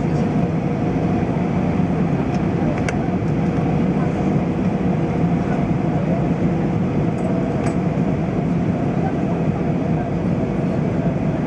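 Steady cabin noise inside an Airbus A320 airliner: an even low rumble of engines and airflow with a faint steady hum, and a few light clicks.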